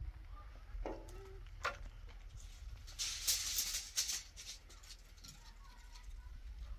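Gritty scraping and rattling, loudest for about a second some three seconds in, as shoes scuff along the rough top of a cinder-block wall. A couple of knocks come before it, over a low rumble of wind on the microphone.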